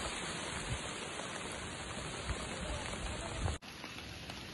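Steady rain falling, a dense even hiss. About three and a half seconds in it cuts abruptly to a quieter hiss.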